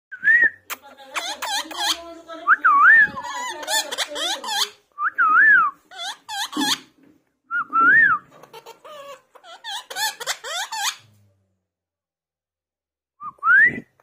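Rose-ringed (Indian ringneck) parakeet whistling and talking in a run of short, wavering whistles and chatter, falling silent for a couple of seconds late on before a rising whistle near the end.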